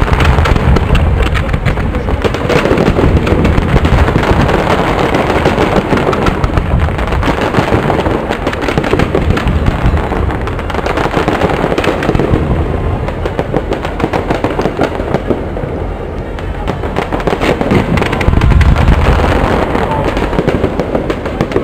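Aerial fireworks display: a dense, continuous barrage of bangs and crackling shell bursts, with heavier booms about a second in and again near the end.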